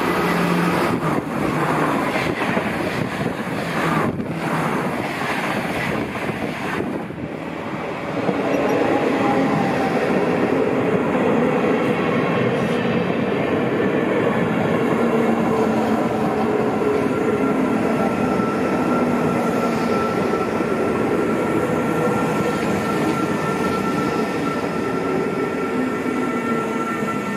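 A train running past on the track at close range, rattling and clattering for about the first eight seconds. It then settles into a steady rolling rumble with several sustained tones above it.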